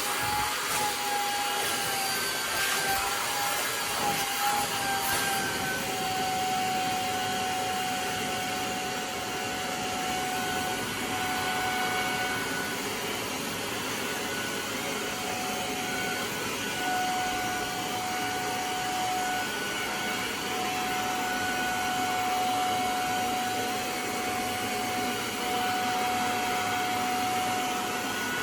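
Hoover spot cleaner's motor running steadily with a high whine, spraying and sucking cleaning solution on a mattress; the whine wavers slightly higher for the first few seconds, with a few faint clicks, then holds a lower, even pitch.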